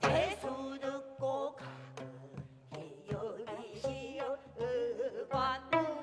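Gayageum (Korean twelve-string zither) plucked, with bent, wavering notes, in gayageum byeongchang with women singing and a buk barrel drum keeping time.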